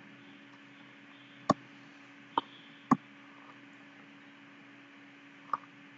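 Four sharp clicks of a computer mouse, spaced irregularly, over a faint steady electrical hum and hiss.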